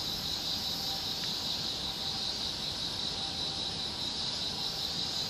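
Steady, shrill insect chorus with a slight pulsing in it.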